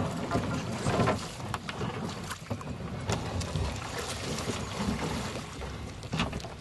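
Water splashing and sloshing around a wooden boat as it is pushed off into a river and a man wades beside it, with wind on the microphone and a few short sharp clicks.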